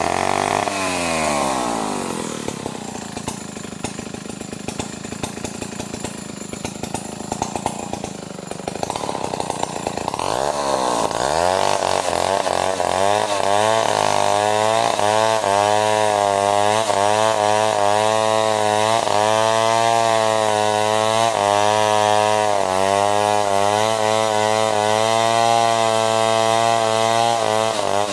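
Stihl 070 two-stroke chainsaw dropping from high revs to a slow, uneven idle. About ten seconds in it revs up again and runs at full throttle, its pitch wavering up and down as it bogs and recovers under load, typical of the bar cutting through timber.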